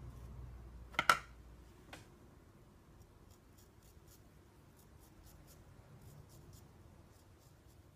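A sharp double knock about a second in, with a smaller one soon after. Then a Riccardo Tonarini custom straight razor scrapes through lather and stubble in a run of short, faint, scratchy strokes.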